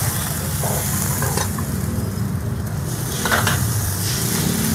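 Water sizzling in a hot steel wok as it is scrubbed out with a bamboo wok brush, with a few short scraping strokes, over a steady low rumble.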